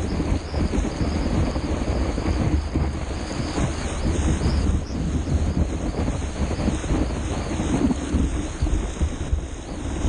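Steady rumbling wind noise on an action camera's microphone, mixed with the rush of breaking surf around a paddleboard riding a wave.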